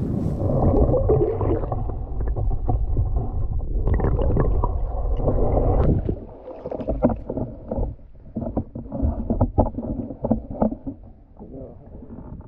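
Wind rumbling on the microphone, then, about halfway, close splashing and dripping water with short knocks as a trout is landed in a net and lifted by hand from the stream.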